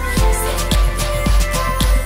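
Electronic background music with a steady kick-drum beat and hi-hats.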